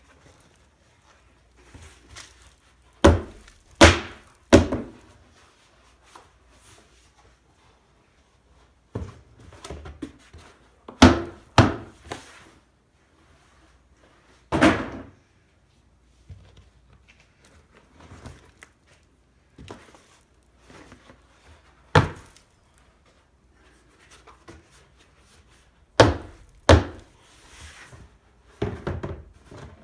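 Black plastic tubs handled while being tipped out over a worm bin: a series of sharp thunks and knocks, several in quick pairs, spaced a few seconds apart.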